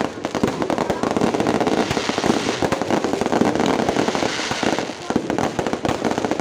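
Fireworks going off in a rapid, dense barrage, many bangs and crackles overlapping without a pause.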